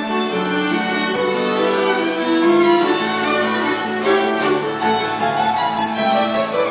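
A piano trio playing classical chamber music: violin and cello bowing held, flowing melodic lines over upright piano accompaniment, with no breaks.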